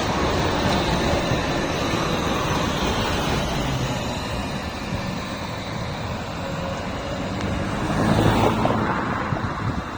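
Zagreb tram and street traffic running by in a steady rumble, with wind on the microphone; the sound eases off midway, then a passing vehicle swells louder about eight seconds in.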